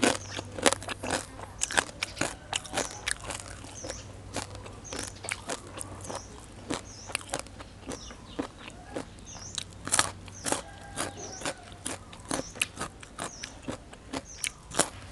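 Raw carrot sticks being bitten and chewed close to the microphone. Crisp crunches come in quick succession, a few each second, with wet chewing between them.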